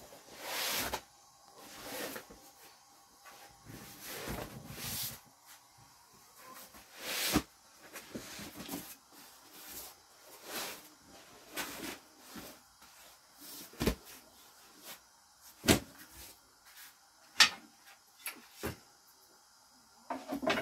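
Rustling and swishing of a large plastic sheet as it is handled and smoothed on the floor, with four sharp knocks in the second half.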